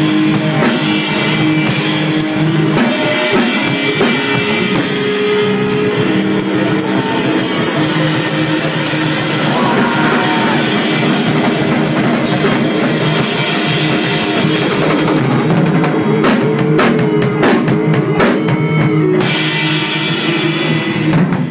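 Stoner rock band playing: electric guitar, bass and drum kit together at a steady loud level, with cymbal hits coming thick and fast over the last several seconds.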